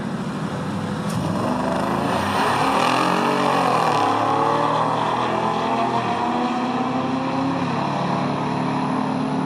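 Car engine running. Its pitch climbs to a peak about three seconds in and drops back, then holds fairly steady with a slow rise.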